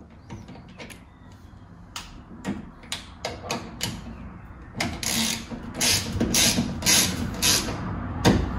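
Hand ratchet with an M6 socket clicking as it turns down the M6 bolts that hold a car door lock in place. The clicks come in short strokes, sparse at first and denser and louder from about five seconds in.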